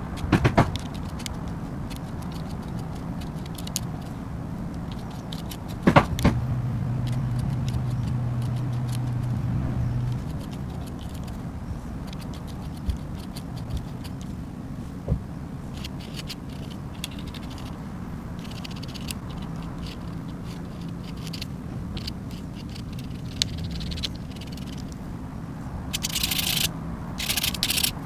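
Metal pen nib scratching on paper while lettering is written in ink, with a faster run of short scratchy strokes near the end. Two sharp knocks stand out, one right at the start and one about six seconds in, over a steady low hum.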